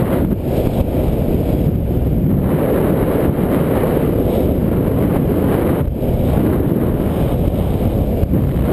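Loud, steady rumble of wind rushing over a body-mounted camera's microphone in flight under a speedglider wing.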